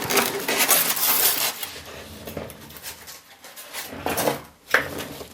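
Packaging being handled while items are lifted out of a box: irregular rustling and crinkling with a few short knocks, the loudest about four seconds in.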